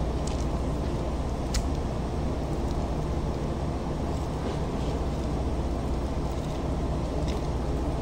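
Steady low mechanical drone of kitchen machinery, with a few faint clicks as a knife works a fish fillet on a plastic cutting board; the sharpest click comes about one and a half seconds in.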